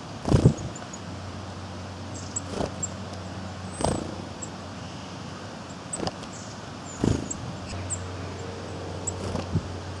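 Small birds (coal tits) landing on and pecking seed from a feeding table: several sharp knocks and wing flutters, the loudest about half a second in, with many short, high bird calls. A low steady hum starts about a second in.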